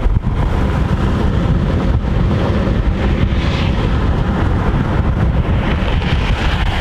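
Wind buffeting the microphone: a loud, steady rumbling rush with no speech over it.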